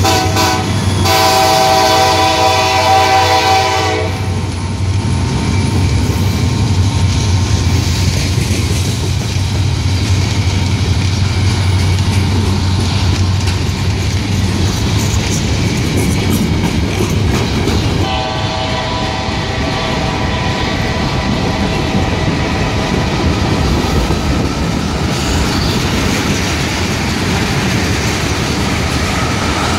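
Freight locomotive horn, a multi-note chord held as a long blast that ends about four seconds in. The train then rumbles past with wheels clacking over rail joints. Around eighteen seconds in a horn chord sounds again for several seconds while the train keeps rolling.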